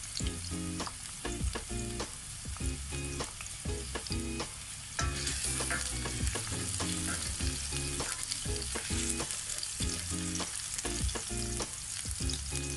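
Ginger, onion and garlic sizzling in hot oil in a stainless steel pan, with a wooden spatula stirring and knocking against the pan. The sizzle grows louder about five seconds in.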